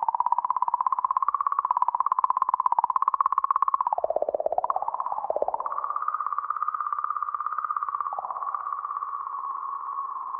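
Sonified magnetic-field oscillations of the plasma around comet 67P/Churyumov–Gerasimenko, as measured by Rosetta's magnetometer and sped up into hearing range, making an electronic, synthetic-sounding tone. It flutters in rapid pulses, wavers and dips in pitch about four to five seconds in, then goes on smoother and a little higher.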